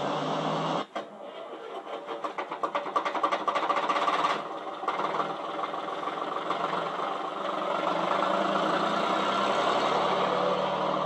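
Porsche engine running, with a brief dip about a second in, then a fast, even pulsing for a few seconds that settles into a steadier drone.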